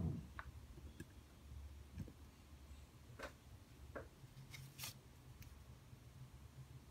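Quiet room tone with a low hum, a brief low thump at the very start, and several faint, scattered clicks.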